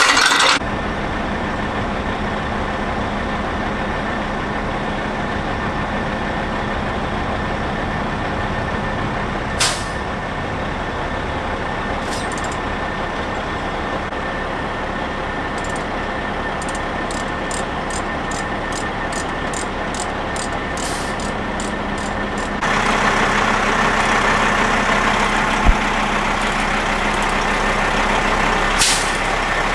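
Heavy military truck and lift-vehicle engines running steadily, with a steady hum. A brief chain rattle comes at the very start and a few sharp clicks follow later. The engine noise steps up and gets louder about 23 seconds in.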